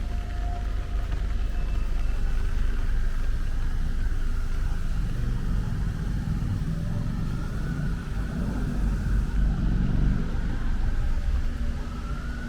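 City road traffic, with the low rumble of vehicle engines and tyres and one vehicle's engine swelling as it passes midway. A distant siren's wail rises and falls faintly, growing more noticeable near the end.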